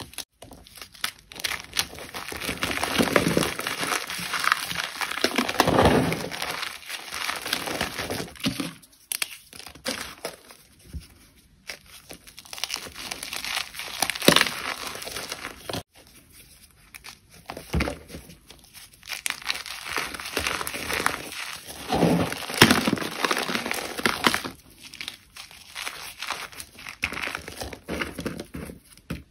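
Blocks of gym chalk being crushed and crumbled, in uneven bursts of dry crunching with short pauses and a few sharp cracks.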